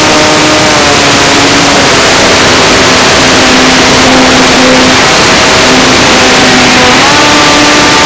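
Electric motor and propeller of a radio-controlled Wildcat model plane whining over heavy wind rush on the wing-mounted camera's microphone. The pitch dips about two seconds in and climbs back near the end as the throttle is eased and opened again.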